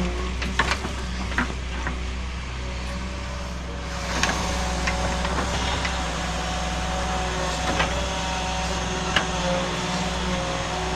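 Excavator's diesel engine running steadily, a little louder from about four seconds in, with scattered sharp clanks and knocks.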